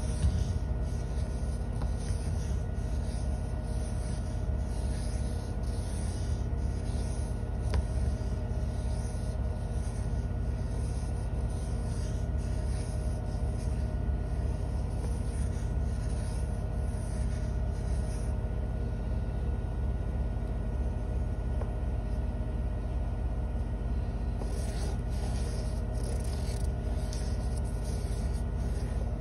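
Washing machine on its spin cycle giving a steady rumble and hum, with the rhythmic scratch of two drawing implements (a pencil and a marker) stroking back and forth on paper. The strokes stop for several seconds past the middle, then start again.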